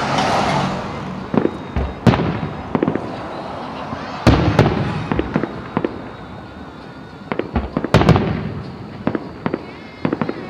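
Aerial fireworks bursting one after another: a string of sharp bangs, each with a rumbling echo, with the heaviest volleys about four and eight seconds in.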